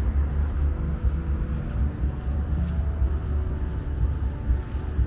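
Outdoor city street ambience: road traffic on a boulevard with a steady, uneven low rumble.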